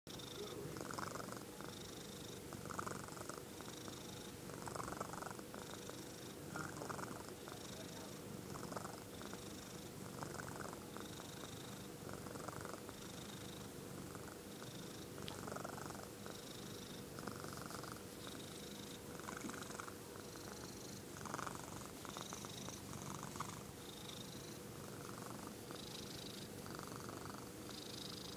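Calico cat purring steadily as its head is stroked, the purr swelling and easing in a regular cycle about every two seconds.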